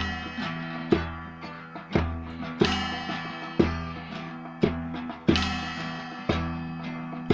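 Guitar music, plucked strings over a low bass note, with a strong accented stroke about once a second.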